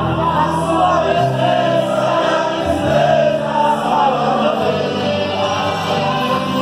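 A gospel vocal group singing together over steady held low notes of musical accompaniment.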